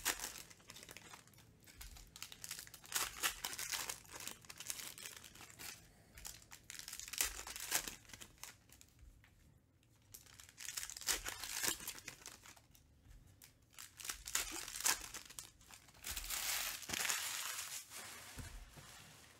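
Foil trading-card pack wrappers being torn open and crinkled by hand, in irregular bursts of crackling.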